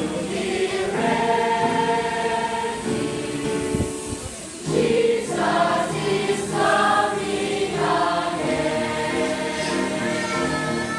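Choir singing a gospel song in held phrases, with a brief break between phrases about four seconds in.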